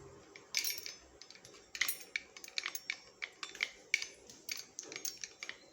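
Dishes and cutlery clinking lightly as they are handled: a quick, irregular run of light clicks and clinks, starting about half a second in and thinning out near the end.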